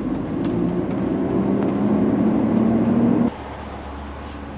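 Hino truck's diesel engine heard inside the cab as the truck pulls away, rising slightly in pitch. About three seconds in it cuts off abruptly to a quieter, steady engine idle.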